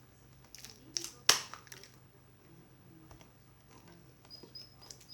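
Sticky slime being kneaded by hand, giving scattered wet clicks and pops, with two sharper snaps about a second in.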